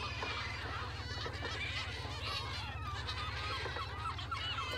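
A flock of gulls calling at once, many short overlapping cries, over the low steady drone of the fishing boat's engine.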